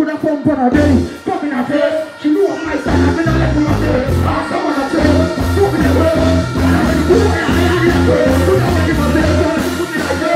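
Live dancehall music over a stage PA: a deejay chanting into a microphone over a backing track. The heavy bass beat drops in about three seconds in.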